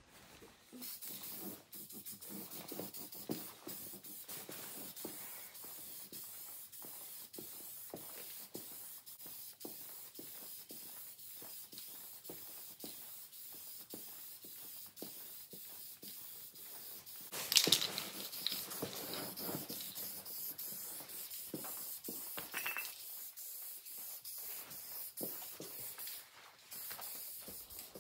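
Aerosol spray-paint can spraying, a steady hiss, with a brief louder burst a little past halfway.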